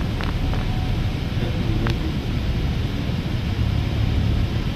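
Irizar i6S Efficient coach heard from inside the passenger cabin as it pulls away: a steady low engine and road rumble, with a few light ticks in the first two seconds.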